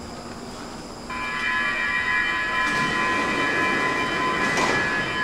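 Stockholm metro train with a high-pitched squeal of several steady tones at once that sets in suddenly about a second in and holds, over rising rail noise.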